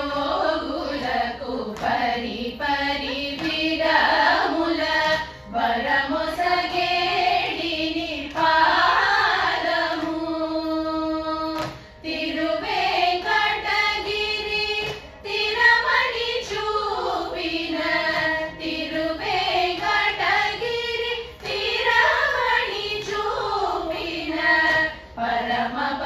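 A group of women singing a Carnatic song together in chorus, the melody winding and ornamented, with one long held note about ten seconds in and short breaths between phrases.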